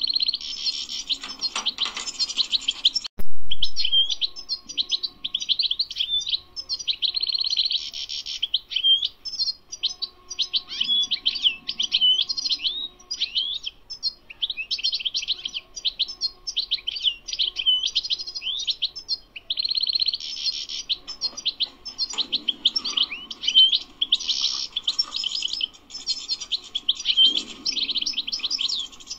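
European goldfinch singing a long, near-continuous song of rapid twittering, trills and chirps, broken only by brief pauses. A single sharp knock sounds about three seconds in.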